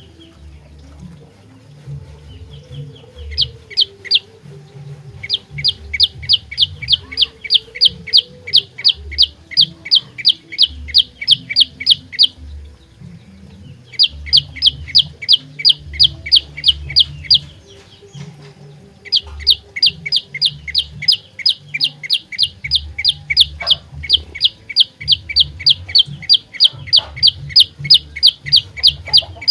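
Prenjak lumut (olive-backed tailorbird) singing its loud, rapid, evenly repeated note, about four notes a second. It comes in three long runs with short pauses between them. Under the song there is a low, uneven rumble.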